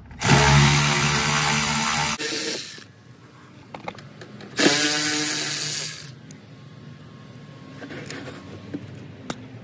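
Cordless ratchet motor run twice, each time for about two seconds, backing out the screws that hold a car's rear fender liner. Quieter clicks and handling sounds follow.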